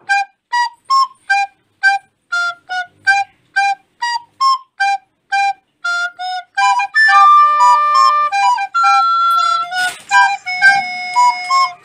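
Background music: a flute melody of short, evenly spaced notes, about three a second, that turns to longer held notes in the second half. There is a single sharp hit near the end.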